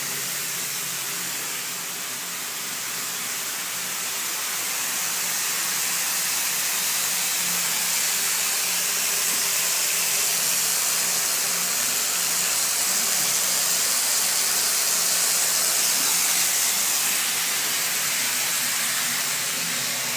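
Water running steadily from a newly fitted bath mixer into a bathtub, a continuous hiss. It is turned on to test the new mixer and drain pipework for leaks.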